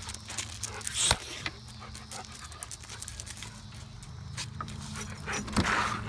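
A puppy's short breathy noises mixed with scuffing and clicks of movement, with a sharp noise about a second in and a breathy burst near the end, over a steady low hum.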